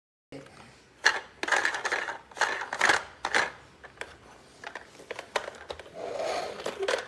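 Hard plastic clattering and knocking from a plastic toy being handled: a quick run of sharp clacks in the first few seconds, then a longer, busier clatter near the end.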